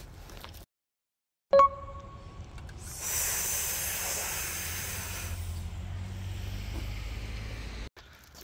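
A sharp click with a short ringing ding, then a loud hiss over a low rumble lasting about five seconds, the hiss fading about halfway through while the rumble goes on until it cuts off abruptly.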